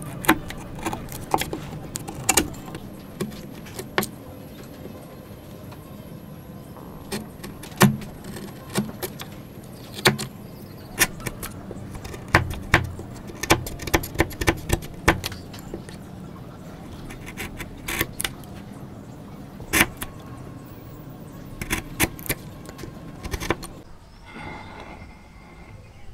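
Steel chisel cutting waste from dovetail sockets in a wooden board: irregular sharp clicks and snaps as the blade bites into the wood and chips break away. The clicks stop a couple of seconds before the end.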